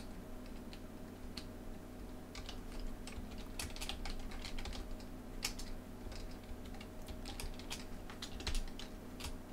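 Computer keyboard typing in irregular runs of keystrokes, over a faint steady hum.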